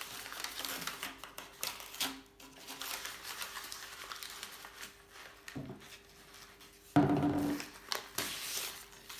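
Masking tape and paper being peeled and crumpled off a freshly painted bicycle frame, crinkling irregularly. A louder, briefly pitched sound comes about seven seconds in.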